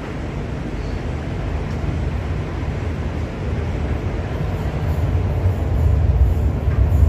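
Low rumble and hum of an MTR Island Line Q-Train standing in the station, growing gradually louder.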